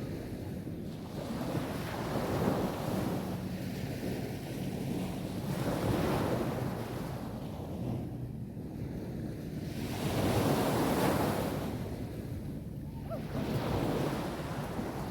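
Sea waves breaking on a beach, the surf swelling and washing in about every four seconds, with wind rumbling on the microphone.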